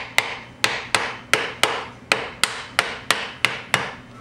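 Hammer tapping a pool pump motor's front end bell onto the stator housing to seat it: a steady series of sharp strikes, about three a second, each ringing briefly.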